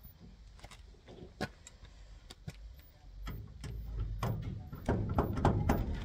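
Metal clicking and rattling from a key blank, held in grips, being worked back and forth in a garage door lock cylinder to impression a key. A few separate clicks at first, then faster, louder rattling over the last few seconds.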